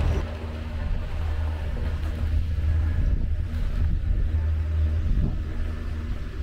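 A steady low rumble of a running motor.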